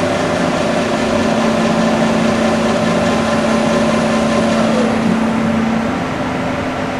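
Cincinnati 750-20 VerciPower CNC mill running under its 50 hp AC variable-speed spindle drive, with both spindles turning: a steady machine whine made of several tones. About five seconds in, one tone drops in pitch and fades. About a second later, another tone stops.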